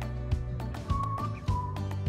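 Background music with a steady beat, a bass line and a high, clear melody.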